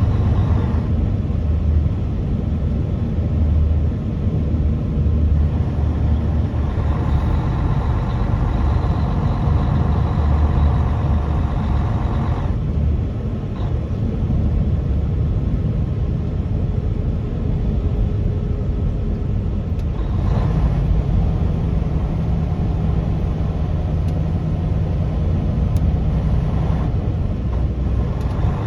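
Truck engine and road noise while driving, a steady low rumble. From about 6 to 12 seconds in a higher-pitched engine drone rises over it, and from about 20 to 27 seconds a different engine note comes in.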